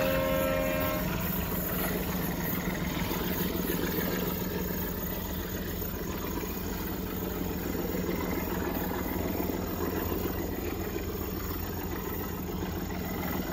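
Diesel train horn sounding two close steady tones that stop about a second in, then the steady engine rumble of the train as it pulls away.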